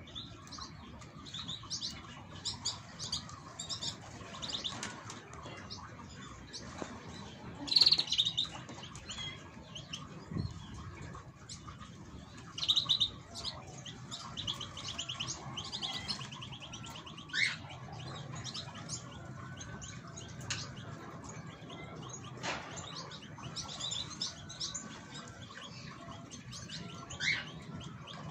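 Caged songbirds calling and singing: short high chirps and fast trills repeat on and off, with one louder burst about eight seconds in.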